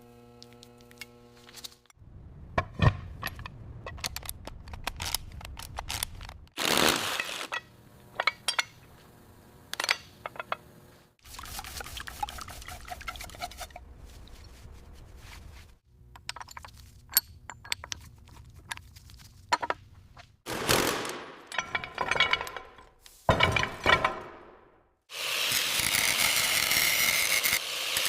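Restoration workshop sounds in short cut-together clips: repeated metal clinks and knocks, some of them ringing, over low noise. About three seconds before the end a loud, steady hissing noise starts.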